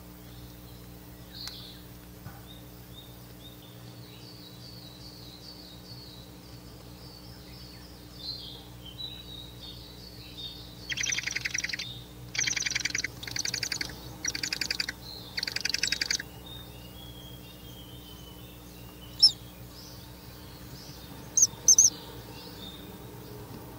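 Ural owl chicks calling: faint high chirps for the first ten seconds or so, then five loud rasping hisses in quick succession, and a few short sharp calls near the end.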